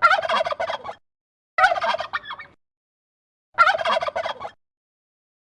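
Turkey gobbling three times, each gobble a rapid warbling call about a second long, with short pauses between them.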